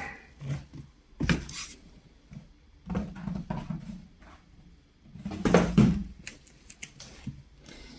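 Cardboard shipping carton being handled and moved: rustling and scraping with knocks in a few separate bursts, the loudest about five and a half seconds in, followed by several sharp clicks.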